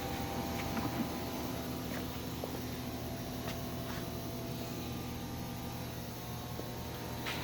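Small CNC lathe's spindle motor running at a steady speed with a steady hum and whine, and a few faint clicks.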